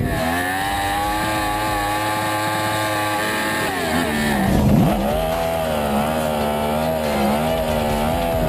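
Sport motorcycle engine held at high, steady revs during a drift. About four and a half seconds in the revs dip sharply and climb straight back, then waver up and down.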